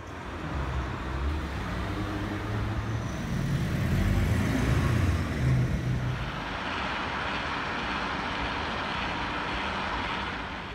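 City street traffic noise. A motor vehicle's engine rumble is strongest about four to five seconds in, then gives way to a steady hiss of road noise.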